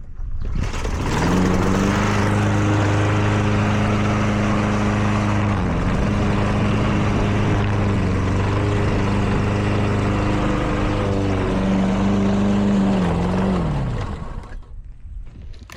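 Lawn mower engine running steadily at speed as it shreds junk food, the blade noise a wide rushing haze over the engine hum. Its pitch dips briefly about six seconds in, then falls away near the end as it winds down and fades out.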